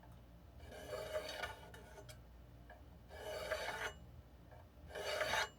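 Wooden cutting board scraping as it is handled on the workbench: three short rubs, each a second or less, the first about half a second in and the last near the end.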